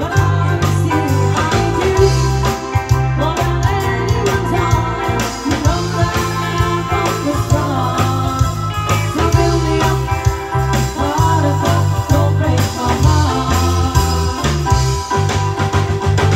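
Live pop-rock band playing through a PA system: electric guitar, bass guitar, drums and keyboard under a heavy, pulsing bass line, with singing over the top.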